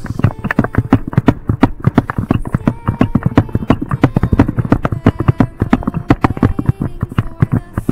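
Handling noise from a handheld camera jostled while its holder runs: a rapid, uneven stream of loud knocks and thumps, several a second.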